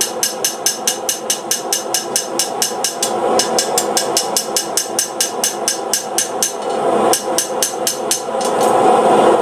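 Hand hammer striking hot steel on an anvil in fast, even blows, about five a second, with a couple of short pauses near the end. A steady rushing noise runs underneath.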